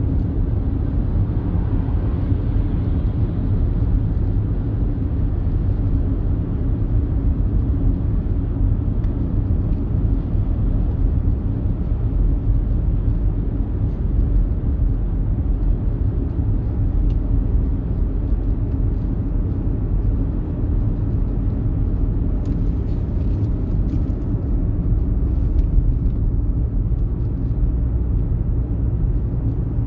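Inside the cabin of an Audi Q5 with the 2.0 TDI four-cylinder diesel, driving on the road: a steady low rumble of engine and tyre noise. The car eases off from about 70 to 50 km/h with the engine at low revs.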